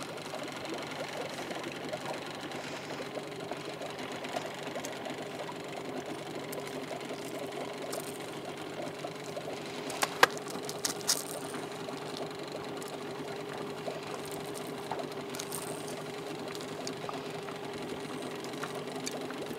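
Boat outboard motor running steadily, with a few sharp clicks about halfway through.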